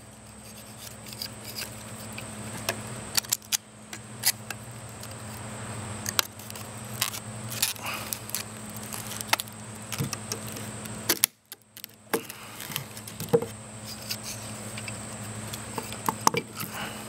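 Metal wrench gripping and twisting the plastic tube of an aquarium magnet device, trying to force open its welded end: irregular sharp clicks, snaps and scrapes of metal on hard plastic. A steady low hum runs underneath, and there is a brief drop to near silence about two-thirds of the way through.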